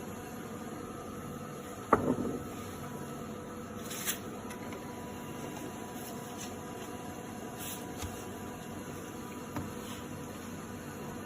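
Steady machine hum and hiss in a room, with one sharp knock about two seconds in and a few fainter clicks later.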